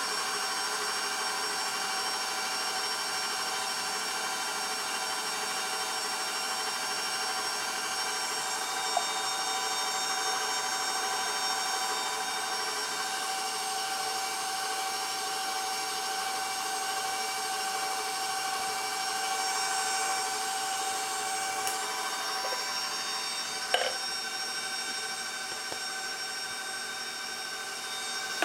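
Electric stand mixer running at a steady speed, its motor giving an even whine while it beats chocolate cake batter. A couple of light knocks, the sharpest late on.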